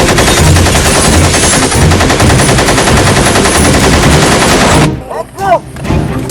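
Rapid automatic gunfire, a continuous burst lasting about five seconds that cuts off suddenly, followed by a brief sliding tone that rises and falls.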